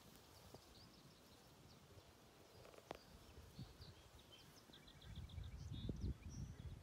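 Quiet marsh ambience with faint, scattered bird chirps and, about two-thirds of the way in, a quick run of short high notes from a small bird. Near the end a low, irregular rumble on the microphone builds up.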